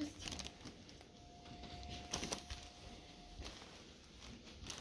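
Faint crinkling and rustling of clear plastic bags as carded die-cast toy cars inside them are handled, in scattered short crackles, loudest about two seconds in and near the end. A faint steady tone runs beneath for about three seconds.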